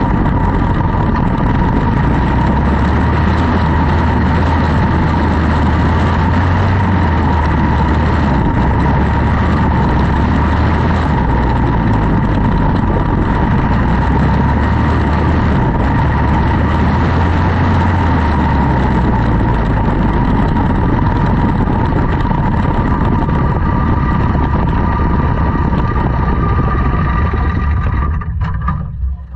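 Quarter midget race car's single-cylinder Briggs & Stratton Animal engine running steadily at speed, heard from on board the car, its pitch wavering slightly. The sound falls away sharply near the end as the car slows to a stop.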